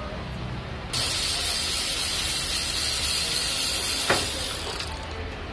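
Pneumatic air ratchet running on a transmission filter bolt: a loud, steady hiss of exhaust air that starts suddenly about a second in and fades near the end, with a single click partway through.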